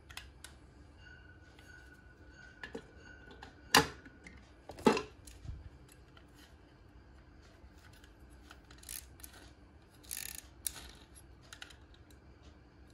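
A toy car being handled in the fingers: small plastic clicks and taps, with two sharp clicks about a second apart a few seconds in and a brief rustle later on.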